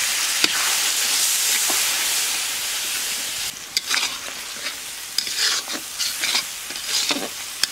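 Spice paste frying in oil in a steel kadai, sizzling loudly just after a little water is added; the sizzle drops away about three and a half seconds in. After that a metal spatula scrapes and knocks against the pan several times as the masala is stirred.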